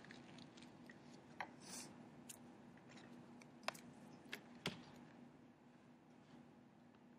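Near silence: a faint steady room hum, with a brief soft rustle about two seconds in and a few light clicks, three of them close together a little after the middle.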